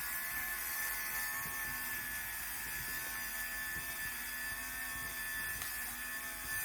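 Electric lint remover (fabric shaver) running, its small motor and spinning blades giving a steady, even buzz.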